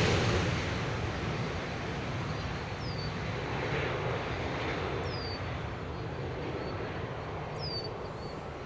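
Boeing 737-800's CFM56 jet engines and rollout noise just after touchdown: a steady rumble that gradually fades as the airliner slows on the runway.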